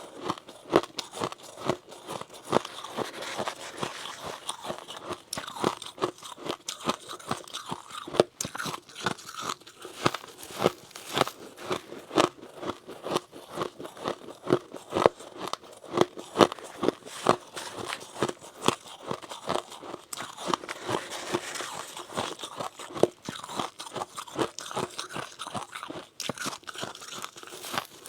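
Close-miked biting and chewing of powdery freezer frost, a dense run of sharp, irregular crunches several times a second.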